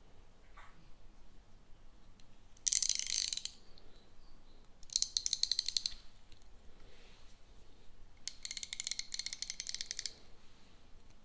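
Fine-toothed 72-tooth ratcheting combination wrench clicking rapidly as its ratchet head is turned back and forth, in three bursts of quick clicks, the last one the longest.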